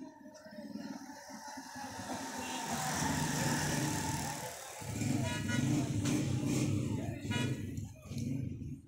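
Low rumble of background road traffic that builds over the first few seconds, with short horn-like toots about five and seven seconds in.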